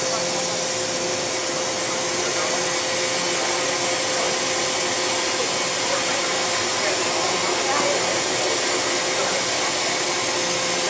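Loud, steady hiss of compressed air leaking from the pneumatic system of an MTR M-Train's faulty door, with a steady tone running under it. The uploader takes the nonstop air noise as a sign that more than one part has failed.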